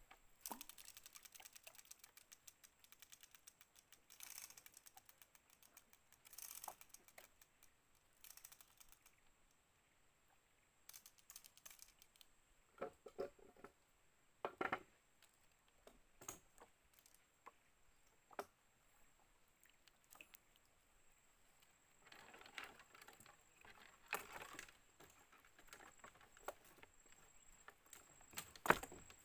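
Faint, irregular clicking and ticking of a fishing rod and spinning reel being handled in a small wooden boat, in scattered clusters with a sharper click near the end, over a faint steady high-pitched whine.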